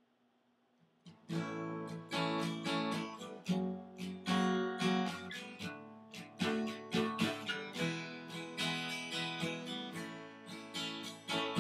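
Acoustic guitar strumming chords in a steady rhythm, starting about a second in after a near-silent pause.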